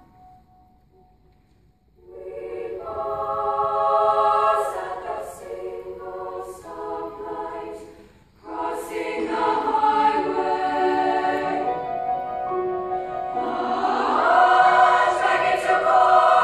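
Treble choir of young women singing together, coming in after about two quiet seconds, breaking off briefly a little past the middle, then swelling to its loudest near the end.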